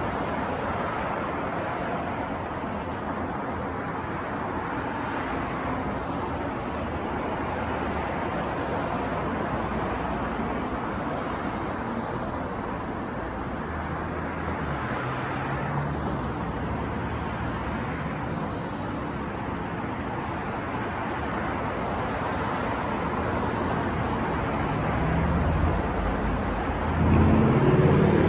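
Steady city street traffic noise, a constant wash of passing cars. Near the end a vehicle passes closer and louder, its engine sound low and rumbling.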